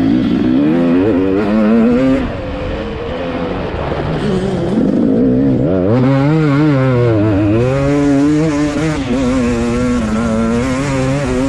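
Motocross bike engine heard on board during a race, revving up and down as the throttle is opened and closed through the turns, with a brief easing off about two seconds in.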